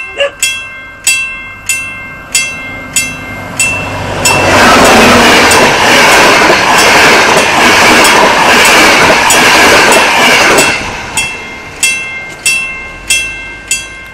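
Adtranz-Bombardier class 220 diesel locomotive and its passenger coaches passing close by, with a low engine hum building up first and then a loud rush of wheel and wind noise from about four seconds in until it stops near eleven seconds. Under it, a level-crossing bell strikes about every 0.6 seconds and is heard clearly again once the train has gone.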